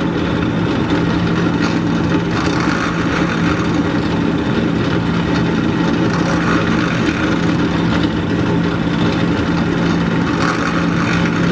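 Benchtop drill press running steadily with a constant motor hum while drilling pilot holes straight through a wooden board.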